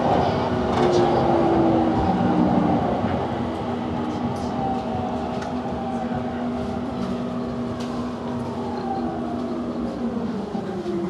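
Electric commuter train running past the platform: motor whine in several steady tones over a rumble of wheels, loudest for the first few seconds and then fading. Near the end the whine falls in pitch as a train slows.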